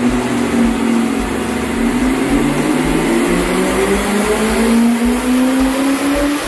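Turbocharged BMW N62B44 4.4-litre V8 in a full-throttle pull on a chassis dyno, its pitch rising steadily as the revs climb from under 2,000 to about 4,000 rpm and boost begins to build.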